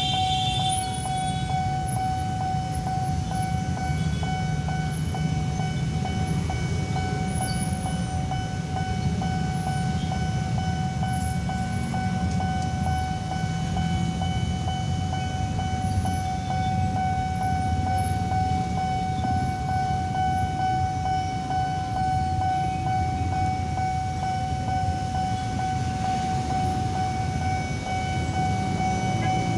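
Railway level crossing warning alarm sounding one unbroken tone, over the low rumble of a KRL electric commuter train going through the crossing.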